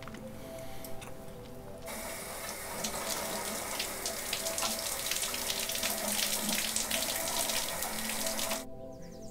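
Shower running: a steady hiss of water spraying down onto a man, starting suddenly about two seconds in and cutting off sharply near the end. Soft background music plays underneath.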